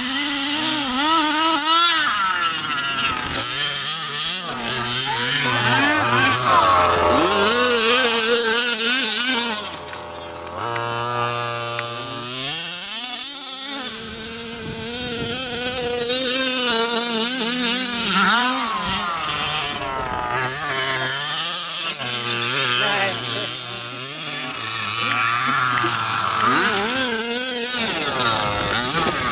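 Two-stroke petrol engines of large-scale RC trucks revving hard and easing off over and over as they are driven across loose dirt. The pitch keeps rising and falling with the throttle, and at times more than one engine is heard at once.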